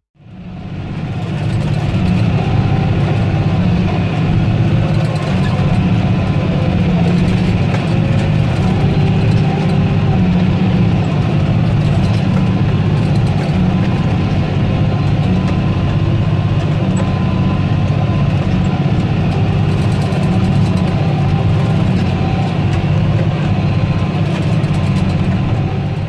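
John Deere 8410's 8.1-litre six-cylinder turbodiesel running steadily under load while working a hay field, fading in over the first couple of seconds.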